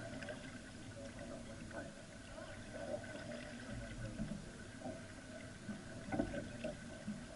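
Water splashing and gurgling along the hull of a Catalina 22 sailboat under way, with a faint steady hum underneath.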